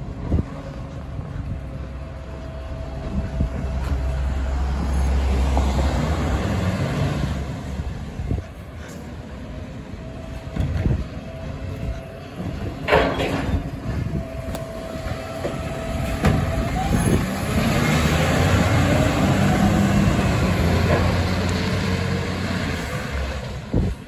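Diesel engine of a side-loading recycling garbage truck revving up twice to drive its hydraulic bin-lifting arm, with sharp knocks and clatter as the wheelie bins are lifted, emptied and set back down; the loudest knock comes about halfway through.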